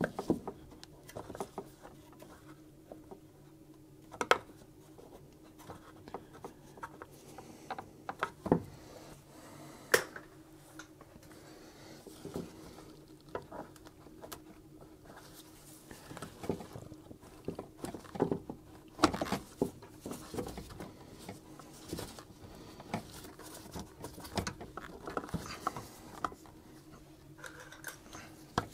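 Hands working the plastic coolant tank of a Suzuki Carry kei truck loose from its hoses and clips: scattered clicks, knocks and plastic rustles, the sharpest about four, eight and ten seconds in and again around nineteen seconds, over a faint steady hum.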